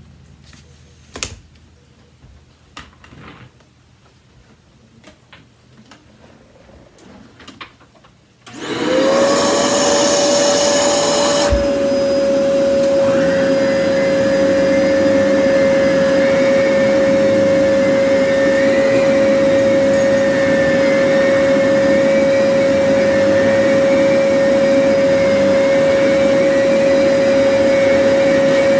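A few light clicks of handling, then a vacuum cleaner's motor is switched on about eight seconds in and spins up to a loud, steady whine with one strong tone. About three seconds later there is a click and the sound changes, with a higher band joining and holding steady to the end.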